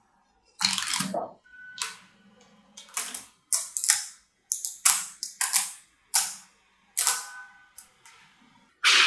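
Mini magnetic balls clicking and clattering together as they are handled, a sheet peeled off a cube and clumps pressed together: a string of about ten sharp clicks and short rattles, irregularly spaced.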